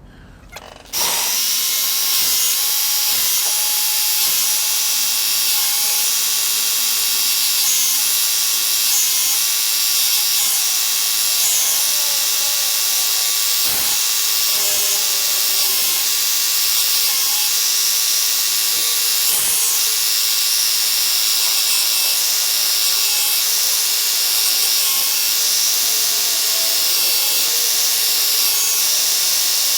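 Work Sharp Ken Onion Edition belt sharpener switched on about a second in and running steadily, its abrasive belt grinding a knife edge as the blade is sharpened.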